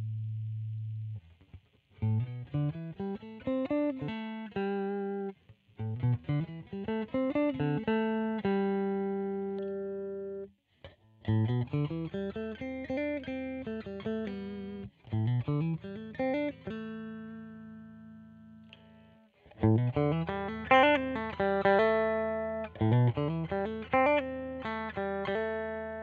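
Squier Vintage Modified Telecaster Thinline semi-hollow electric guitar played through an amplifier: short phrases of quick picked single notes, several of them climbing runs, each phrase ending on a held note that rings out and fades before the next begins.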